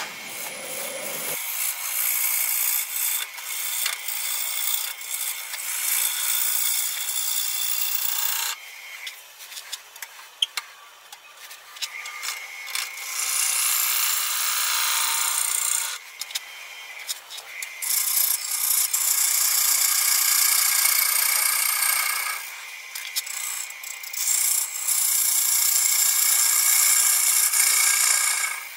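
Freshly sharpened bowl gouge cutting the outside of a spinning Fijian mahogany bowl blank on a wood lathe: a scraping shaving noise that comes and goes in several passes of a few seconds each, with short pauses between.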